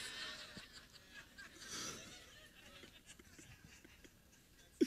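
Faint laughter from a seated audience that dies away after about two seconds.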